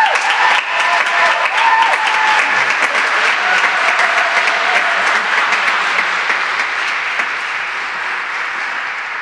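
Audience applauding, with a few whooping voices over the clapping in the first two seconds. The applause slowly thins out.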